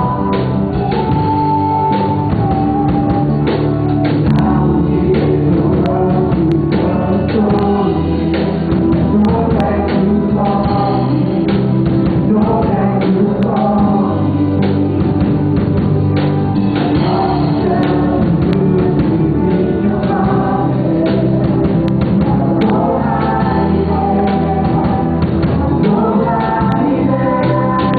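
Christian worship song: group singing over a band with a steady drum beat.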